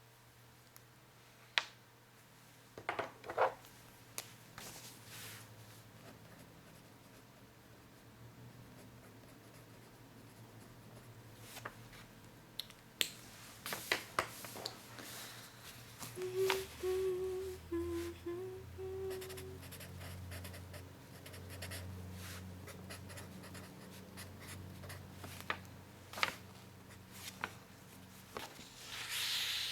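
Pen writing and scratching on paper, with scattered light taps and clicks. About two-thirds of the way through, a few notes are hummed briefly.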